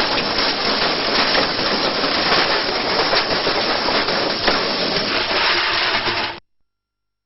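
Washing machine running with a brick tumbling inside the drum: loud, dense rattling with rapid irregular knocks as the brick bangs against the drum. It cuts off suddenly a little over six seconds in.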